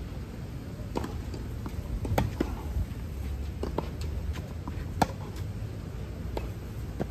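Tennis rally: the ball struck back and forth by rackets and bouncing on a clay court, a series of sharp pops about a second or so apart, the loudest about five seconds in.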